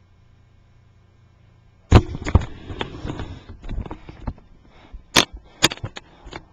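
Handling noise from a laptop being moved on the floor: a sudden clatter of knocks, bumps and rubbing on its built-in microphone starting about two seconds in and lasting a couple of seconds, then two sharp clicks close together.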